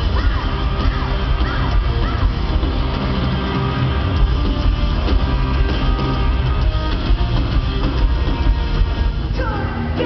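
Live rock band playing loud, with guitars and a singing voice over a heavy bass end, heard from the crowd in an arena.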